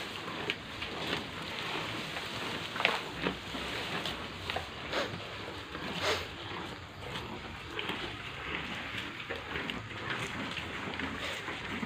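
Cattle eating fresh-cut grass at a trough: irregular rustling of the grass with occasional sharper crunches and snaps.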